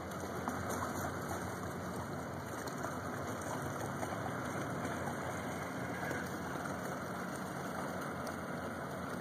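Steady low drone of a patrol ship's diesel engines running at slow manoeuvring speed across the water, under a rushing background noise.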